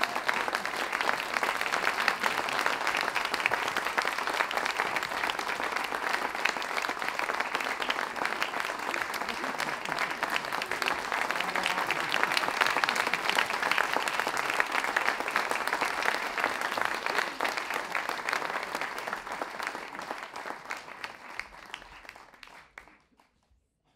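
Audience applause, a steady dense clapping that fades out near the end.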